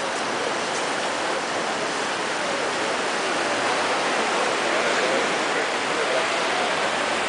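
Steady wash of ocean surf, an even rushing noise that doesn't let up.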